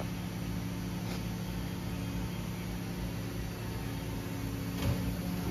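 Steady hum of a powered-up DMG Mori Seiki NL2500 CNC turning center sitting at idle, with several low steady tones over a hiss. A brief faint click comes near the end.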